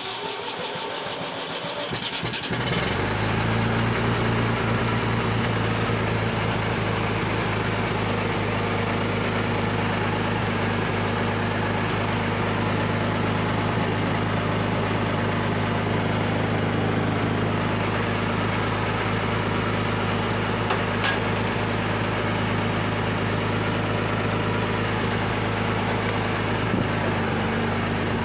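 Massey Ferguson 135 tractor engine starting, rough and uneven for the first couple of seconds, then settling into a steady run. It is running again now that a clogged gas-tank outlet that starved it of fuel has been cleared.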